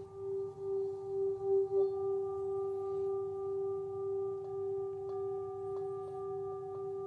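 Metal singing bowl sung by running a wooden mallet around its rim: the low tone swells and pulses for about the first two seconds, then the mallet comes off and the bowl rings on steadily with higher overtones and a slow wavering.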